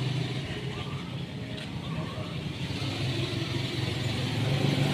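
A motor vehicle engine running with a steady low hum, over general street noise.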